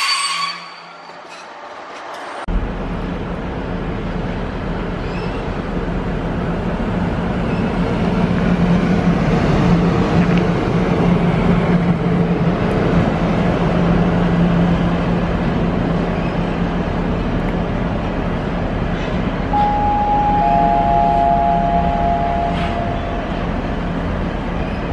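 Electric locomotive hauling a freight train of car-carrier wagons past, the wheels rumbling steadily over the rails under a low steady hum. About twenty seconds in, two short high-pitched squeals overlap.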